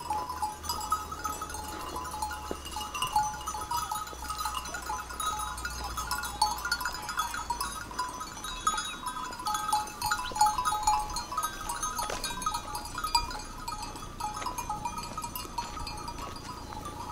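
Flock of grazing sheep with a continuous jangle of many small bells clinking at a few different pitches, and occasional bleats.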